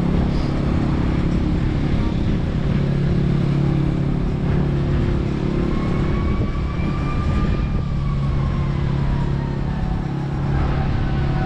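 An engine running steadily with a low hum, joined in the second half by a faint whine that slowly rises and falls in pitch.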